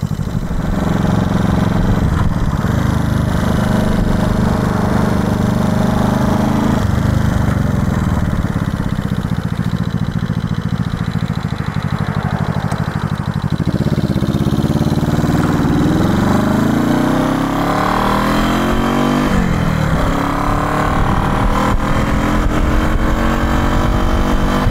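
1970 Honda CB350's parallel-twin engine running steadily at low speed, then pulling away from about halfway through: its pitch climbs, falls back at each gear change and climbs again.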